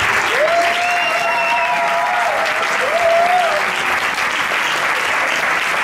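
Audience applauding, with a few voices calling out in long, drawn-out cheers over the clapping in the first half.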